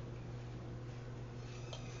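Quiet background with a steady low hum and a few faint clicks.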